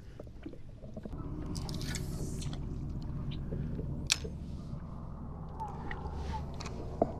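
Electric trolling motor of a bass boat humming steadily, starting about a second in, with a couple of sharp clicks about four seconds in and near the end.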